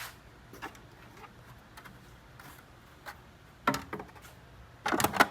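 Black plastic pulley guard being worked under flat washers, giving light clicks and knocks. A louder knock comes a little before four seconds in and a quick cluster of knocks near the end.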